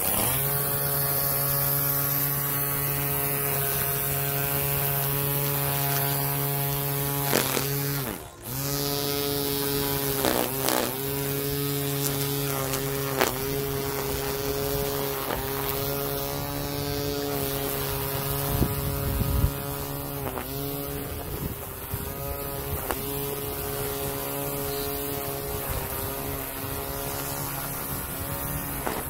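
Cordless electric string trimmer running at a steady pitch, the pitch dipping briefly every couple of seconds as the line cuts into grass along a path edge. The motor almost stops for a moment about eight seconds in, then picks up again.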